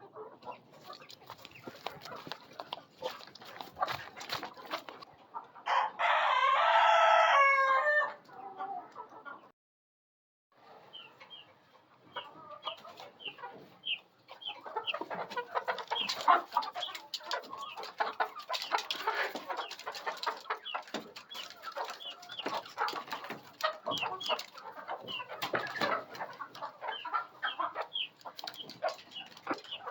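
A flock of chickens clucking continuously, with one loud rooster crow lasting about two seconds early on. The sound cuts out for about a second roughly a third of the way in, then the clucking returns, dotted with short high peeps.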